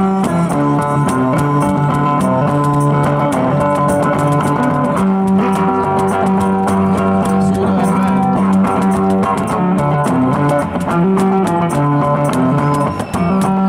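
Live instrumental jam on electric guitar and electric bass played through small amplifiers, with a steady beat of sharp percussive taps.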